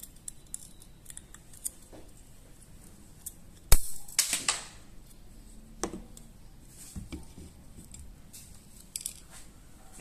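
Small metallic clicks and scrapes of a tool working parts inside a stripped Jericho 941 FB pistol frame. A sharp metal click is the loudest sound, about four seconds in, followed by a brief scratchy clatter and a few softer knocks.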